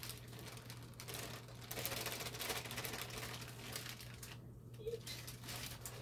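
Crinkling, rustling and scraping as baking mix is scooped out with a plastic measuring cup, over a low steady hum.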